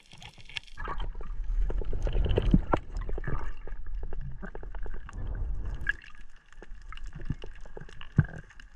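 Underwater sound picked up by a camera while freediving over a reef: water gurgling and sloshing past, with many small scattered clicks.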